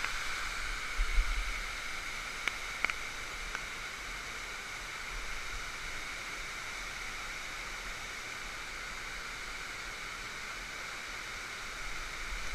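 Steady rushing of stream water and pouring rain, muffled through a waterproof camera housing. A few knocks and clicks in the first three seconds.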